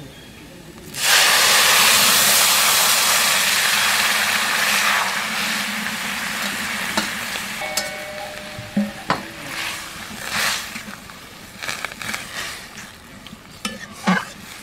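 Boiled Malabar spinach and its water tipped into a hot pan of fried masoor dal and spices set off a loud sizzle about a second in that slowly dies down. A metal spatula then scrapes and knocks against the pan a few times as the mix is stirred.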